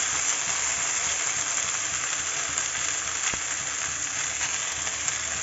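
Vegetables and oil sizzling steadily in a hot metal kadhai as boiled noodles are dropped in for chow mein, with one short click about three seconds in.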